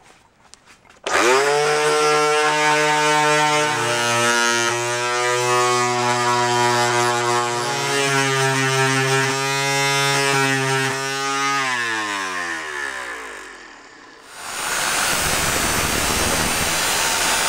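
A Black & Decker FireStorm electric sander starts about a second in, spins up and runs steadily as the painted aluminum of a beer bottle ring is sanded against it, then switches off and winds down with a falling pitch. Right after, a small chop saw starts and runs with a steady rushing noise.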